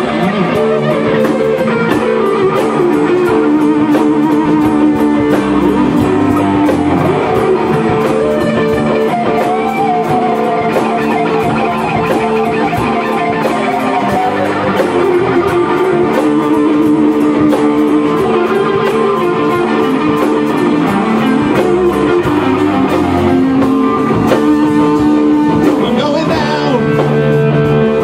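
Rock band playing live: electric guitars through amplifiers over a drum kit, with held guitar notes and a lead line over a steady beat.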